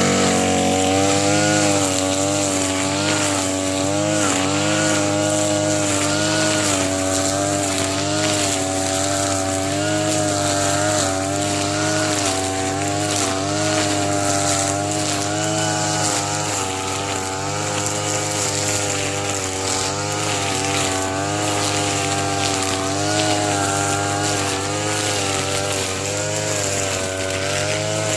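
A TB33 two-stroke brush cutter engine running at high revs while cutting thick grass. Its pitch wavers up and down about once a second as the load changes.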